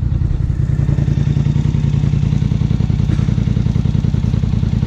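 Polaris Sportsman Highlifter 850's twin-cylinder engine idling steadily through a Big Gun aftermarket exhaust, with an even, rapid exhaust pulse. The engine is running on Big Gun's recommended Power Box tune.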